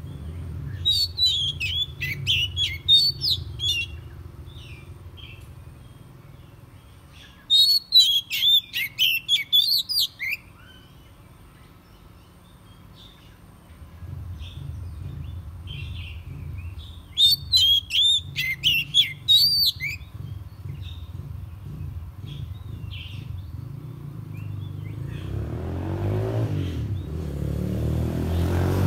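Oriental magpie-robin singing: three bursts of rapid, varied sweeping notes, each a few seconds long, about a second in, around eight seconds and around seventeen seconds. A low rumble runs underneath, and a passing motor vehicle grows louder near the end.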